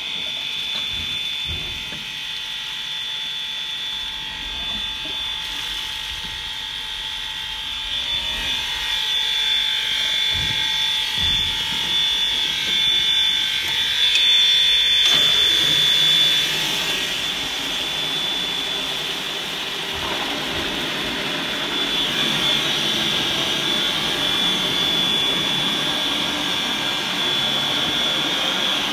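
Steam locomotive inspirator hissing with a steady high whine as steam and hot water are purged through its open overflow. About halfway through, the starting valve is pulled to the prime position and the rush of steam grows louder and fuller.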